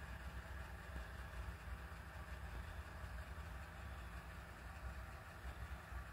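Steady low rumble with a faint even hiss above it, a constant machine-like background hum with no distinct events.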